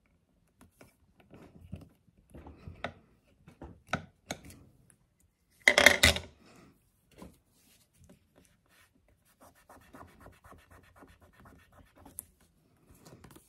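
Paper-craft handling: an acrylic stamp block pressed and rubbed onto a paper journal card, with scattered taps and scrapes. About six seconds in, a louder short clatter as the block is set down, then faint crackling rubbing of fingers on the card.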